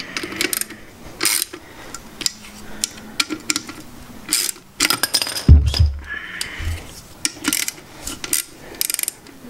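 Hand ratchet clicking in short, irregular runs while it snugs down the small 8 mm nuts on the alternator's rear cover, with light metal clinks of the tool. A heavy low thump about five and a half seconds in.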